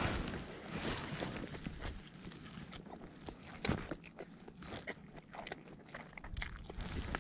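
A person eating, with crunchy bites and chewing in short, irregular crackles.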